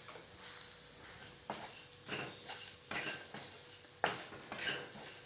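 A spoon stirring in a frying pan, with about five short scrapes and clinks of metal against the pan.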